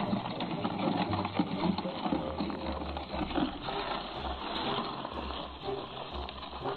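A wooden sled being pulled over packed snow: the runners scrape and crunch steadily, with many small clicks and a low rumble throughout.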